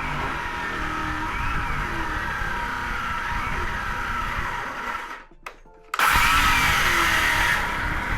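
Background music for the first few seconds, then a sudden break, then a power saw running loud for about two seconds as it cuts a lignum vitae blank to size.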